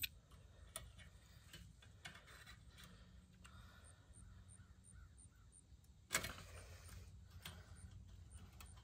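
Near silence with faint handling noises as barbed wire is worked at a wooden fence post, and one sharp, harsh sound about six seconds in.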